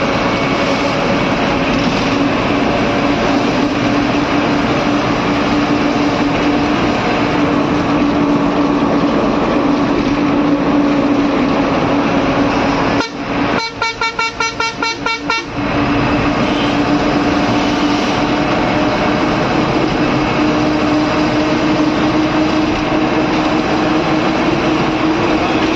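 Bus engine and road noise from inside the driver's cab, a steady drone. About 13 seconds in, the horn sounds for two to three seconds in rapid pulses.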